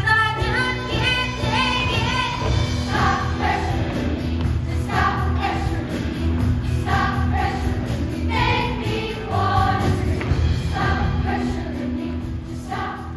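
Middle school show choir singing in full chorus over musical accompaniment, in short rhythmic phrases.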